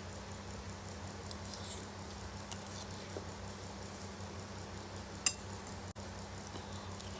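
A few light clicks and clinks of cutlery on a bowl while eating noodles, the sharpest about five seconds in, over a steady low hum.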